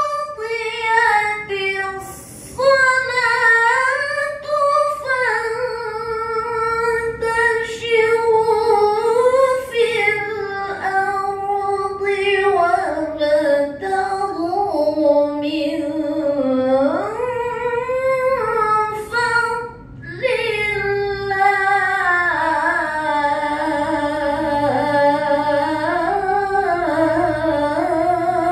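A woman reciting the Qur'an in the melodic tilawah style into a handheld microphone: long drawn-out phrases of held, ornamented notes that waver in pitch. She breaks off for breath about two seconds in and again about twenty seconds in.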